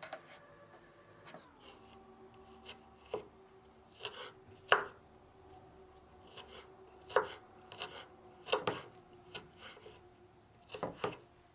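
Knife dicing a peeled garlic clove into small cubes: a dozen or so sharp, unevenly spaced chopping taps, some in quick pairs.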